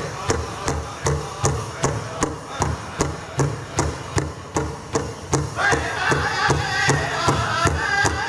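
Large powwow drum struck in unison with drumsticks at a steady beat of about three strokes a second. A bit past halfway, the singers' high voices come in over the drumbeat.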